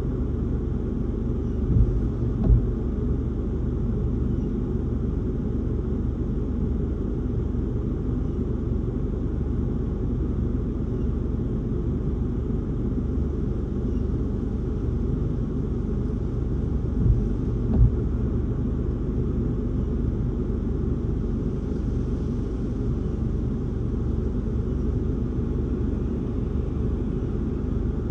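Steady low rumble of strong wind around a parked car, heard from inside the cabin, with two pairs of short thumps, one pair about two seconds in and another about seventeen seconds in.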